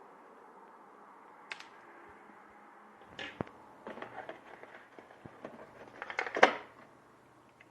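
Irregular light clicks and knocks, like small objects being handled, starting about three seconds in and loudest near the end, over a faint steady hum.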